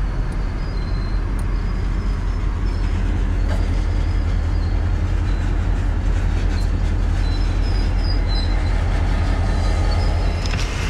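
Freight train running on the rails: a steady deep rumble that holds level throughout.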